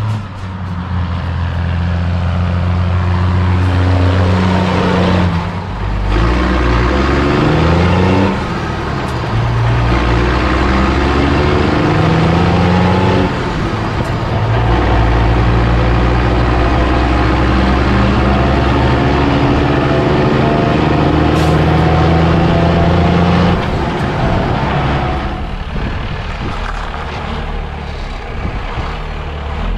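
Mercedes-Benz Unimog diesel engine heard through its new twin vertical exhaust stacks while the truck drives and accelerates. The engine note climbs, then drops suddenly several times as it shifts up through the gears, and eases off near the end.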